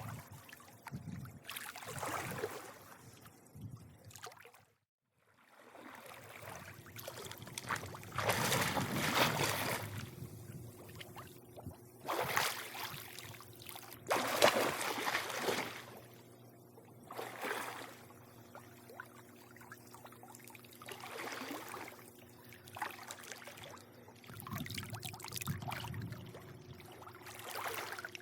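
Swimming-pool water lapping and sloshing in uneven surges every couple of seconds, over a steady low hum. The sound drops out briefly about five seconds in.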